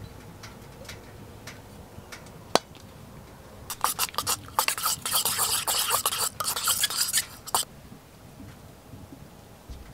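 A metal utensil scraping and clinking rapidly against a pot or pan for about four seconds, as in stirring while cooking. A single sharp knock comes first, and faint ticks sound about twice a second.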